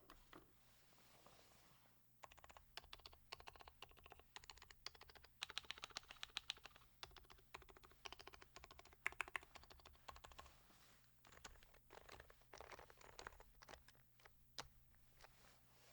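Quiet typing on a Sho S60v2 custom keyboard with Topre-style 45 g rubber domes and sliders, Silence-X rings and a copper plate, under HHKB blank keycaps. Keystrokes come in quick runs after a couple of lone presses, with a short lull about eleven seconds in and a last single keystroke near the end.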